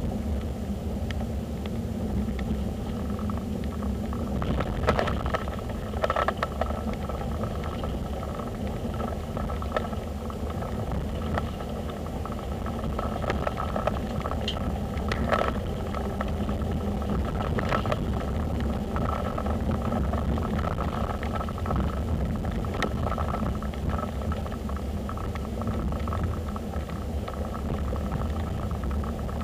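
Car on the move: a steady low rumble of engine and road noise, with scattered light clicks and rattles.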